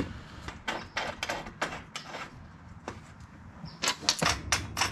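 A string of short, sharp metal clicks and clinks, bunched more densely near the end, as bolts and washers are handled and fitted into the mounting hardware on solar panel frames.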